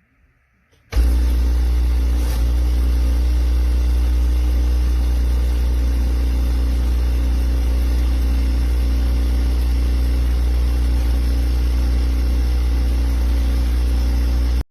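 12V diaphragm water pump running steadily with a loud, low hum. It starts suddenly about a second in and cuts off abruptly at the end.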